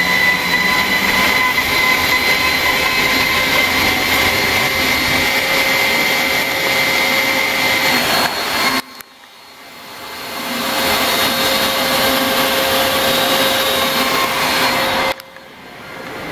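CNC router spindle running with a steady high whine while milling wood. The sound drops off abruptly about nine seconds in, climbs back up over the next couple of seconds, and drops again near the end.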